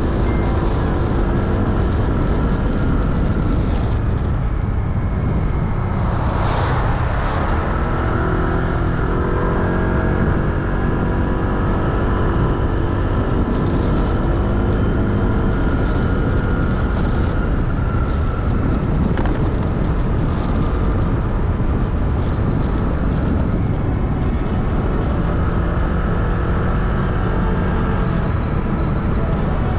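Motorcycle engine running on the move, with wind and road noise; its pitch climbs as it speeds up about eight seconds in, and there is a brief rushing swell just before that.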